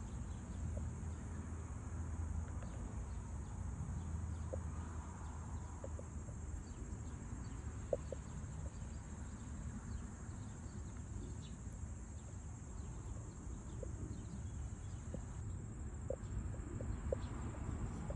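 Outdoor summer ambience: a steady high-pitched insect drone, over a low rumble with scattered faint ticks.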